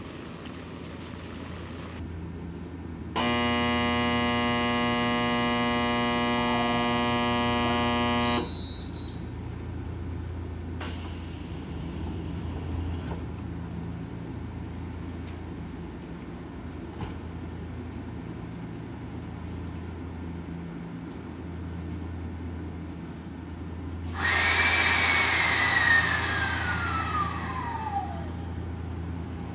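A steady low hum runs throughout. About three seconds in, a loud, steady electric buzzer sounds for about five seconds and then cuts off. Near the end comes a loud rush of air with a whistle falling in pitch, the kind of air release a standing train's brakes make.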